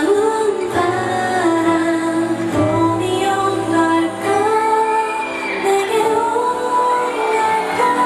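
A K-pop girl group song played loud over a concert sound system, with female vocals sung into handheld microphones and held, wavering notes over the backing track.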